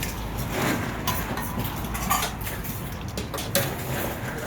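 Food-stall clatter: scattered clinks and knocks of utensils and containers over a steady low background hum.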